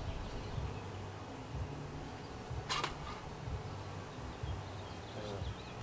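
Honeybees buzzing around an opened hive, a steady low hum, with one sharp click about halfway through as a hive tool works a wooden frame. A few faint bird chirps come near the end.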